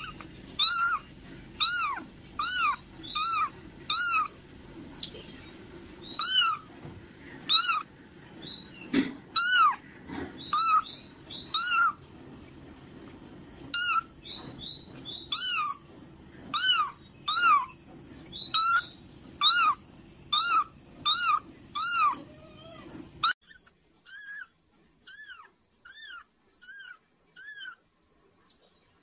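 A kitten mewing over and over in short, high-pitched mews, one to two a second. A low background hiss under the mews cuts off suddenly about 23 seconds in, while the mewing goes on.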